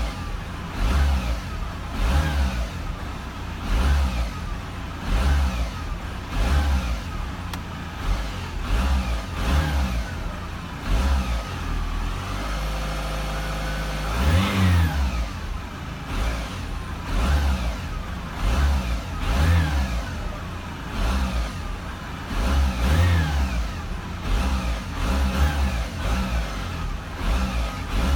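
Audi A4 B7 2.0 TDI four-cylinder diesel engine revved again and again in short blips, rising and falling about once every second or so, with a short steady idle about halfway through. The owner is chasing a knock from the engine area and asks whether it is the flywheel.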